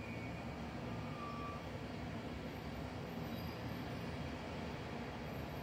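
Steady low rumble of buses and road traffic, mixed with an even hiss of rain and wet tyres.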